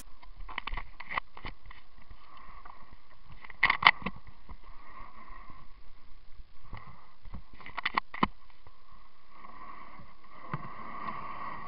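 Muffled knocks and water noise from a Pelican 80 kayak being paddled, heard through a waterproof camera mounted on the boat. Clusters of sharp knocks come about every four seconds over a steady, dull hiss.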